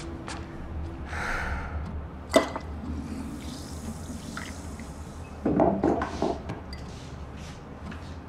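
Kitchen water tap running, with glass handling: one sharp clink about two seconds in and a louder knocking clatter a little past halfway.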